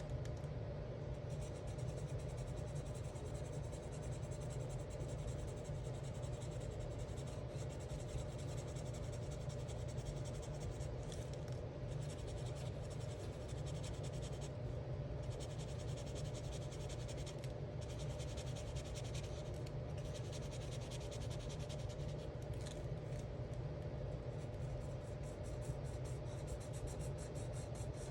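Alcohol marker tips rubbing and scratching across coloring-book paper in continuous strokes, broken by a few brief pauses, over a steady low hum.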